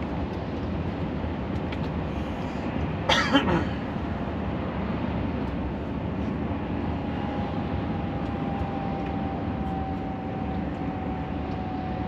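Steady engine and road noise inside a moving truck's cab, with a brief cough about three seconds in. About halfway through a faint whine comes in and slowly sinks in pitch.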